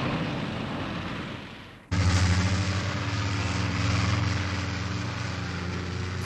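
Anime sound effect of a truck engine running with a steady low drone. It cuts in abruptly about two seconds in, after a rushing noise fades away.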